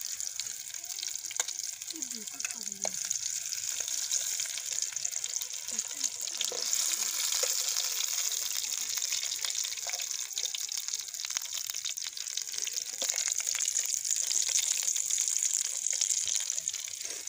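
Whole boiled, peeled potatoes sizzling in hot oil in a frying pan: a steady hiss and crackle that swells around the middle and again near the end.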